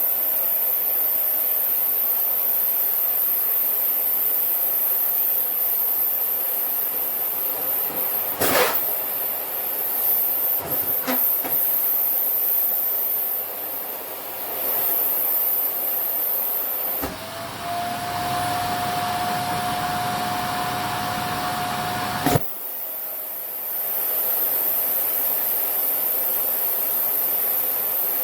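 Vacuum cleaner running with a steady whine, sucking at a down jacket, with a couple of sharp knocks as the fabric is pulled against the nozzle. About seventeen seconds in, the motor's whine jumps higher and the rush of air grows rougher for about five seconds as the jacket chokes the nozzle, then drops back to its steady note.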